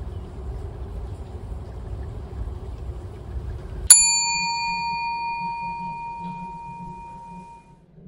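A low outdoor rumble cuts off about four seconds in. A single struck bell then sounds: the comic "chiin" of a Buddhist rin (prayer bowl) bell, used as a sound effect for nothing happening. It rings with several bright tones and fades away over about four seconds.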